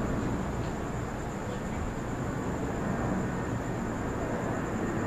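Steady outdoor night ambience: an even low rumble of noise, with a faint steady high tone above it.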